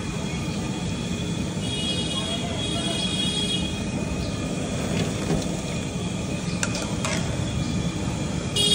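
Steady street traffic noise, with a short, high horn toot near the end.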